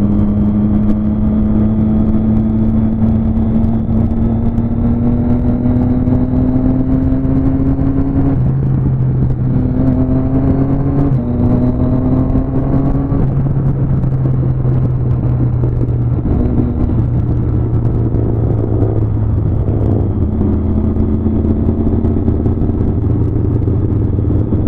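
Onboard sound of the rider's inline-four motorcycle engine cruising on part throttle, its pitch slowly climbing as the bike pulls, then dipping and rising again several times with shifts and throttle changes. A steady wind and road rush runs under it.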